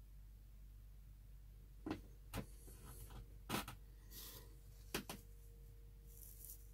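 Quiet room with a low steady hum, broken by about half a dozen faint short knocks and clicks in the middle of the stretch.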